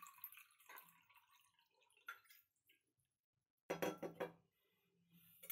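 Water trickling faintly from a steel bowl into a bowl of besan (gram flour), thinning out to a few drips. A short burst of knocks comes about four seconds in.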